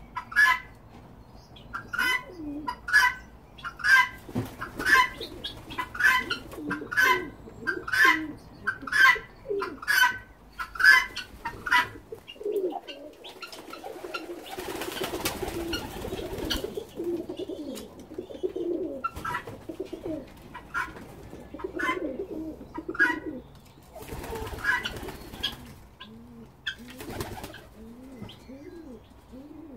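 A guineafowl calling harshly and over and over, about two sharp notes a second for the first twelve seconds, then less often. Pigeons coo underneath throughout, and a rush of noise comes around the middle.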